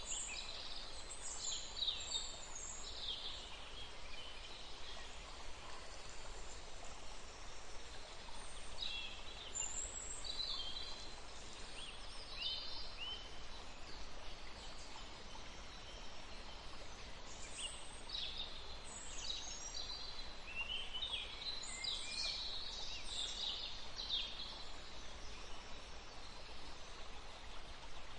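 Songbirds chirping and trilling in clusters of short high calls over a steady outdoor background hiss, with quieter stretches in between.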